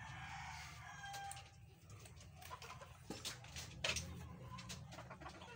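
Faint clucking bird calls, with scattered clicks and one sharp knock about four seconds in.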